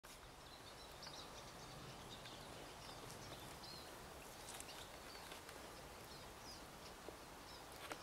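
Faint, scattered short high chirps of European goldfinches in the treetops over a steady hiss of outdoor background noise.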